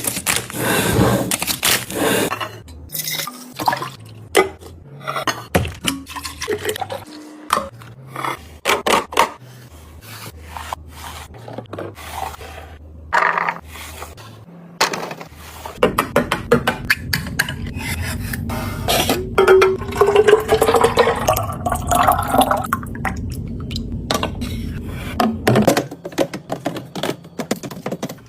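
Containers being handled and set down with clicks, knocks and scrapes. About halfway through, liquid is poured steadily into a container for about ten seconds, its pitch rising as the container fills.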